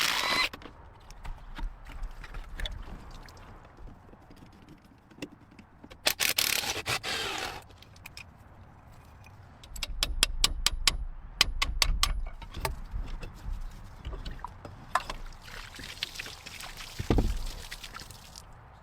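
Hand work on a boat engine: scattered metal clicks and scraping, with a short hissing burst about six seconds in and a run of quick clicks in the middle.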